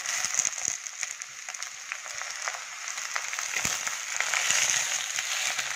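Sliced onions frying in hot oil in a clay pot: a steady sizzle, with the small clicks and scrapes of a spatula stirring them against the pot.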